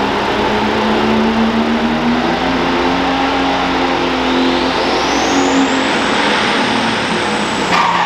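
Modified pulling tractor's engine running loud and steady while staged on the sled at the start line. A high whine climbs over about two seconds midway and then holds. Just before the end the sound changes sharply as the tractor launches on the green flag.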